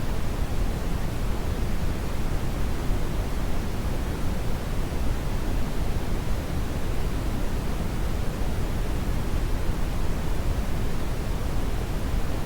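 Brown noise: a steady, even rushing hiss weighted heavily toward the low end, with no change or events.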